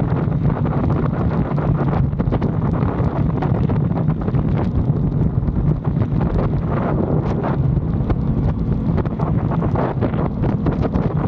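Wind rushing over the microphone while riding, over the steady drone of an Aprilia Tuono 660 Factory's parallel-twin engine held at a constant pace.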